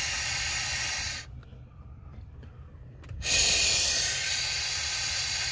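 Air being blown through the air-freshener hose of a Mercedes-Benz S550 to test it for a clog: two long hisses of rushing air, the first ending about a second in and the second starting about three seconds in. The air passes freely, so the line is not clogged.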